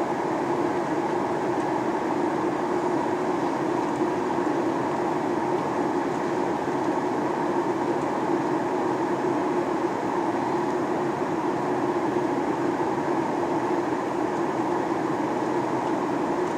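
Steady cabin drone inside a Boeing 737-800 in flight: the CFM56-7B engines and the airflow over the fuselage, a constant rumble with a low hum and a higher whine that neither rises nor falls.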